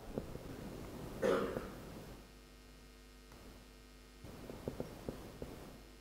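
A single cough about a second in. Then, from about two seconds, a faint steady drone of several held tones begins: the data-driven soundscape starting to play. A few soft clicks come near the end.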